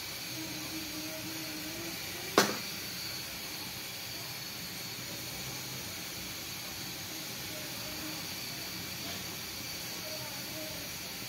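Steady hiss from a covered pan of greens cooking and steaming on the stove, with a single sharp click about two seconds in.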